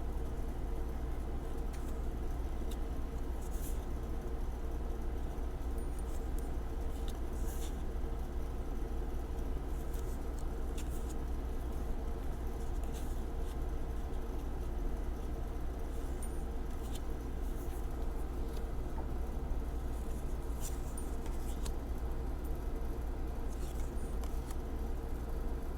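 Tarot cards being flipped through and laid down: scattered light clicks and flicks every second or two, over a steady low hum with a faint steady tone.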